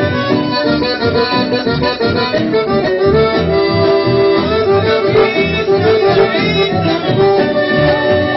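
Accordion-led band music playing over a steady rhythmic beat, instrumental with no singing.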